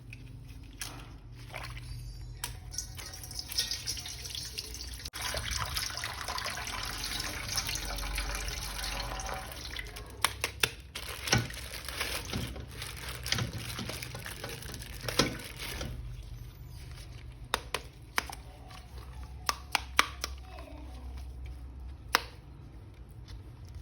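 Water running and splashing while a toy action figure is washed, with scattered sharp clicks and knocks; the water is heaviest through the first half.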